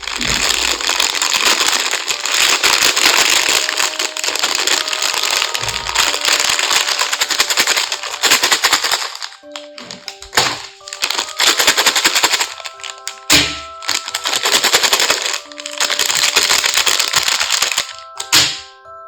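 Loud, rapid crackling of plastic packaging being crinkled and torn open close to the microphone: one long stretch of about nine seconds, then several shorter bursts. Light background music plays underneath.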